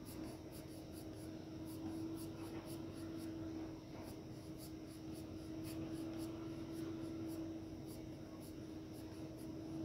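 Graphite pencil shading on paper: quick, repeated short strokes scratching across the sheet, a few a second, as a cylinder's shadow is filled in. A steady low hum runs underneath.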